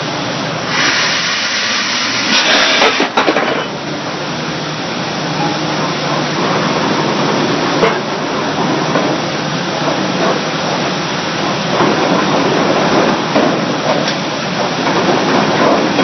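Vulcan No. 2 pile hammer driving a timber pile into soft soil: a steady hiss of exhaust as the ram cycles, with louder blasts of hiss about a second in and again a couple of seconds later.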